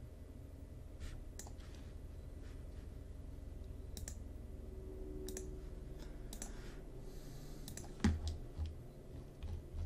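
Computer mouse clicks, one every second or so, over a steady low hum. About eight seconds in comes a louder thump, followed by a few soft low knocks.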